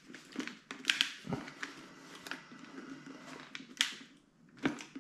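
Light plastic clicks and rustling from a Schuberth C5 modular motorcycle helmet being turned over in the hands. A few sharper clicks come about a second in and near the end.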